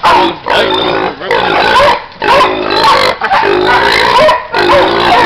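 A 140-pound hog squealing loudly over and over in long, pitched squeals broken by short gaps, as a catch dog holds it by the head.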